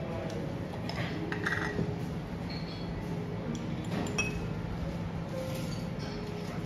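Light clinks of a small metal spoon against a glass jar and ceramic bowls, a few scattered ticks with the sharpest about four seconds in, over soft background music.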